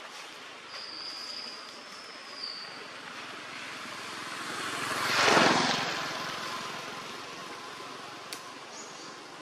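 A motor vehicle passes by, building over a couple of seconds to a peak about five seconds in and then fading away. Near the start, a thin high whistle holds for about two seconds over a steady forest background.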